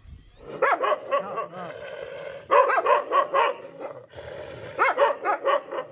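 A dog barking in three quick bouts of several short barks each, the bouts about two seconds apart.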